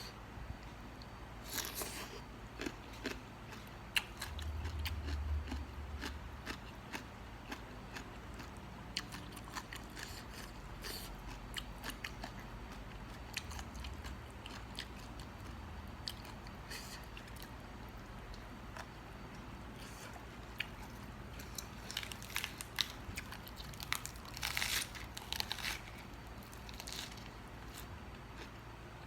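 Close-up eating sounds: crisp crunching bites and chewing of Thai seafood papaya salad, in irregular bunches with a thick run of crunches near the end.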